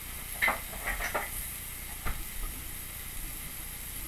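Steaks with green peppers and onions sizzling on a hot cast iron grill pan: a steady frying hiss with several sharp pops and crackles in the first two seconds or so.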